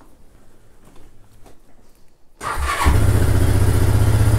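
Honda ATV engine cold-started on a lithium battery chilled to about minus 20: a brief crank about two and a half seconds in, then it catches almost at once and runs steadily.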